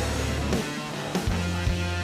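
Rock background music with electric guitar, a steady bass line and a regular drum beat.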